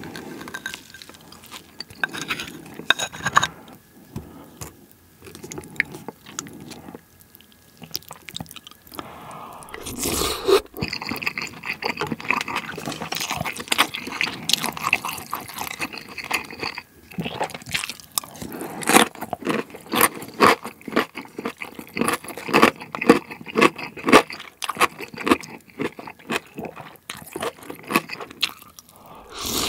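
Rice being tipped into a ceramic bowl of pork-and-rice soup and mixed in with wooden chopsticks: a long run of quick clicks and scrapes against the bowl, busiest in the second half, with one louder rush about ten seconds in.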